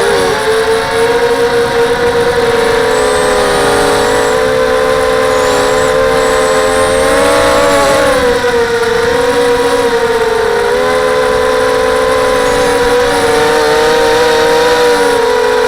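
Quadcopter's SunnySky 2204 2300KV brushless motors spinning HQ 5x3 propellers: a loud whine of several close tones that wavers and shifts in pitch with the throttle, with a brief dip about eight seconds in.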